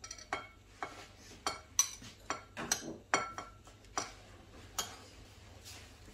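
Metal spoon clinking against glass bowls while scooping chopped vegetables into a bowl of beaten egg: about a dozen sharp, irregular taps over the first five seconds, some leaving a short glassy ring.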